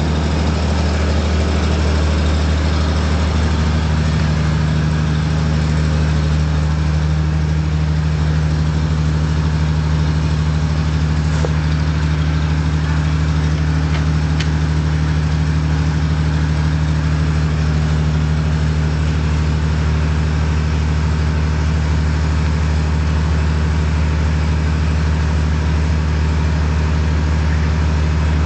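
Combine harvester engine idling steadily with an even low hum, on a New Holland Clayson crawler-track rice combine.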